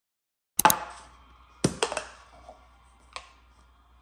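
A few sharp clicks and knocks of small objects being handled and set down in a small room: a quick pair about half a second in, two more a second later, and a single one near the end.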